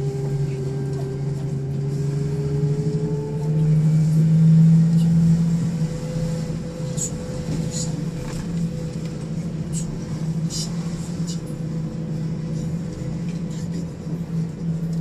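Scania K400 bus running on the road: a steady low drone, louder about four seconds in, with a steady higher-pitched whine above it and scattered faint ticks. This is the abnormal running noise the bus makes while driving.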